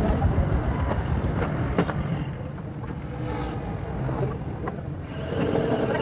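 A few sharp metallic knocks from sheet-metal work on refrigerator panel pieces, over a steady low rumble.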